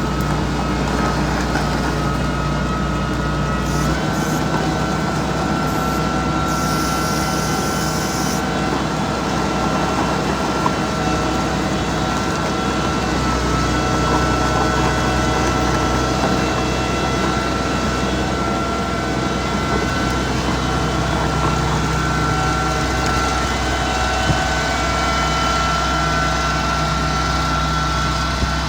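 Mitsubishi MG430 motor grader's diesel engine running steadily while working, with a steady high whine over the engine note.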